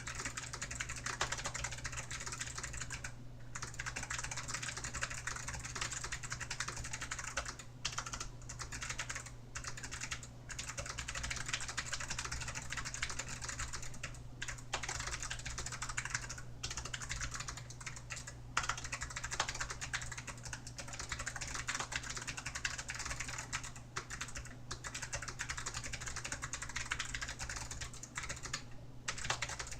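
Continuous fast typing on a DAREU EK820 low-profile mechanical keyboard with Kailh low-profile clicky switches: a dense stream of key clicks broken by a few short pauses, picked up by a phone microphone that dulls the crisp click, over a steady low hum.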